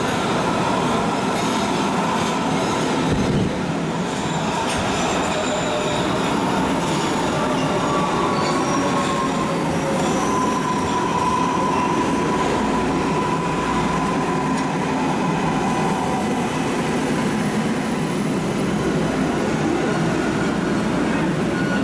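MARTA rapid-transit train pulling into an underground station and slowing to a stop: a steady loud rumble of wheels on rail, with thin whining tones that slowly fall in pitch as it slows.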